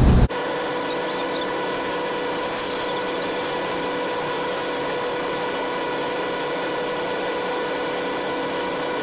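Machine running at a constant speed, giving a steady whine with one strong held tone and fainter overtones. A few faint high ticks sound about one to three seconds in.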